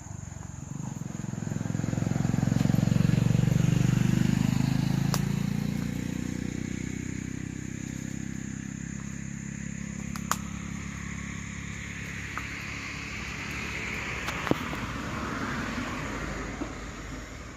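A motor vehicle's engine running past, growing louder over the first few seconds and then slowly fading, with a few sharp clicks later on.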